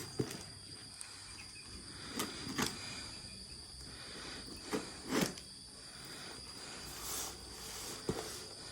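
A steady high-pitched insect drone, with about six short knocks and rustles scattered through it, the loudest a little over five seconds in.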